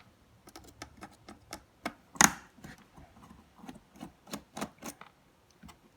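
Irregular small clicks and taps from handling a laptop's plastic screen assembly and its parts, with one louder knock about two seconds in.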